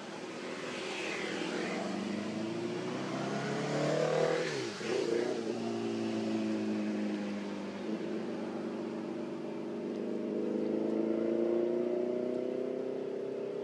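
Motor vehicle engine running and passing by, its pitch drifting up and down, with a sharp drop in pitch about four seconds in as it goes past, then a steady engine drone rising and easing off.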